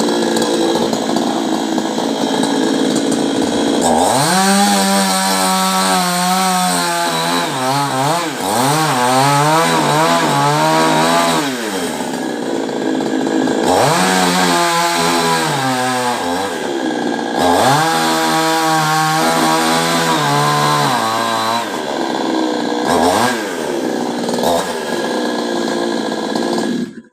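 Two-stroke chainsaw cutting a coconut palm. It runs steadily at first, then from about four seconds in is revved hard over and over, its pitch climbing and sagging again and again.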